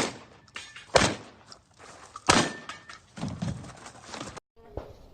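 Three loud shotgun blasts about a second apart from a Rock Island Armory VR-80 semi-automatic 12-gauge, followed by fainter knocks; the sound cuts off suddenly near the end.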